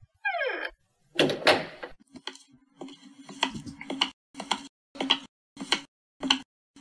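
Sound effects of a door: a short squeak that falls in pitch as it opens, a dull thud as it shuts about a second in, then evenly spaced footsteps walking away at a little under two steps a second.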